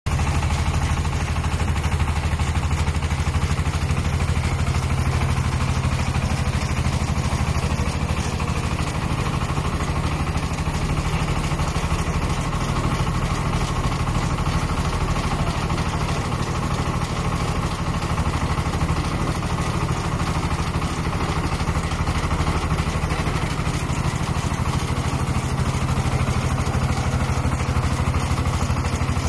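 Engine of a three-wheeled vertical feed-mixer wagon running at a steady, even speed.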